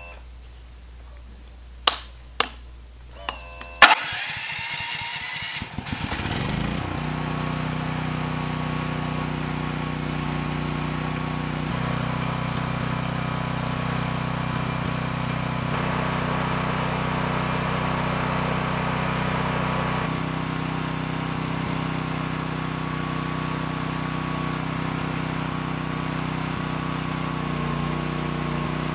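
Ryobi 7000-watt fuel-injected generator engine cold-started on charcoal lighter fluid: a few sharp clicks, then the electric starter cranks for about two seconds and the engine catches and settles into steady running.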